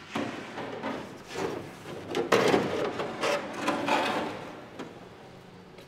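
Irregular scraping and knocking for about five seconds, loudest a little past halfway, then fading to the workshop's background.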